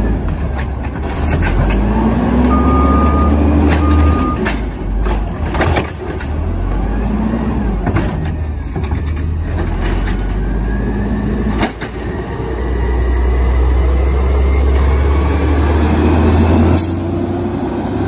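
American LaFrance Condor automated side-loader garbage truck working at the curb: its engine revs up and down with a rising and falling whine, and there are scattered clanks and knocks. Two short beeps come a few seconds in, and there is a hiss of air brakes.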